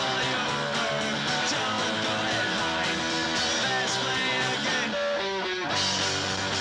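Lo-fi punk rock from a home-recorded 1996 demo cassette: a three-piece band with electric guitar, bass and drums playing steadily.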